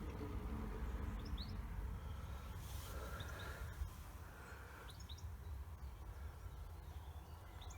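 Faint short, high, rising bird chirps in small groups, heard about four times, over a steady low rumble.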